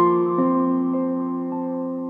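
Slow background music on piano, single notes struck every half second or so and left to ring over a held chord, slowly fading.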